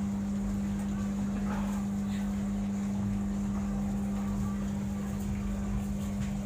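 A steady machine hum: one constant low drone over a rumble, unchanging throughout.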